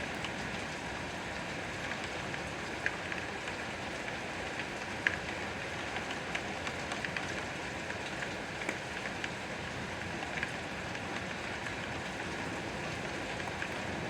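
Steady rain falling, an even hiss with scattered louder individual drops landing close by.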